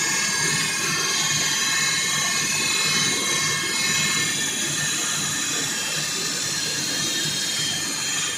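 Walk-behind floor saw cutting into a floor slab: the engine runs steadily under load while the blade grinds through, with a constant high whine.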